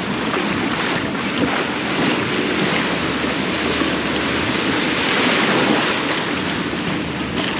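Surf washing and breaking around the pier pilings and into the shallows, swelling a little louder just past the middle, with wind buffeting the microphone.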